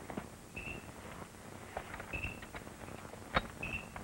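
Night ambience: a short high chirp repeats about every second and a half, with a single sharp click a little after three seconds in.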